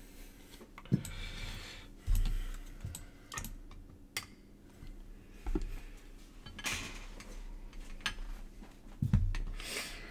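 Irregular clicking and tapping of a computer keyboard being typed on, mixed with hard plastic card holders clicked and set down on a table, with a few dull knocks and short rustles.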